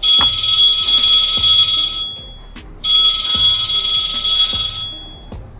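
Loud, high-pitched electronic ringing, like an alarm bell, sounding in two bursts of about two seconds each with a short gap between them.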